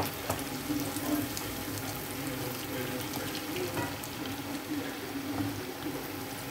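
Hash browns frying in hot oil in a pan: a steady sizzle with small crackles throughout. A wooden spatula taps against the pan once at the start.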